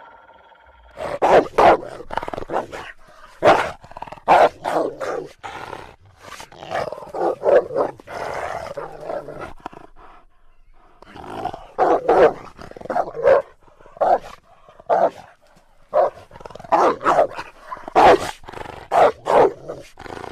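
A dog barking and growling in clusters of short, sharp barks, with a brief pause about halfway through.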